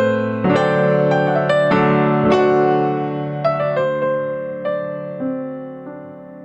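Soft background piano music, gentle chords that slowly fade in loudness.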